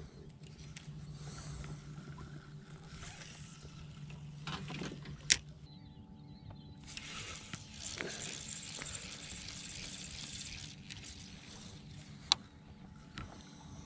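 Low steady hum of a boat's electric trolling motor. A sharp click sounds about five seconds in and another near the end, and there are a few seconds of hiss past the middle.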